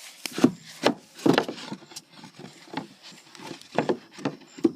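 Wooden knocks and scraping as a chicken coop's wooden door is worked: about half a dozen sharp knocks, most in the first second and a half, and two more near the end.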